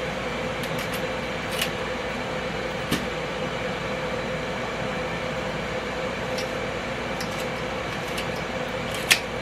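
Steady whir of a Ninja Foodi XL Grill air fryer's fan running as it preheats. Over it come a few sharp snips of kitchen shears cutting through raw chicken wing joints, the loudest near the end.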